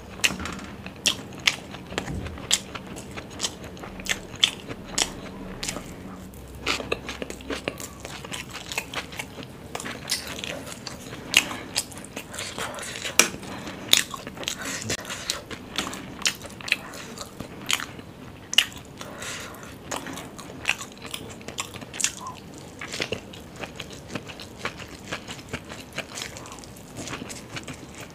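Close-miked chewing and wet mouth sounds of someone eating, with many sharp, irregular smacks and clicks.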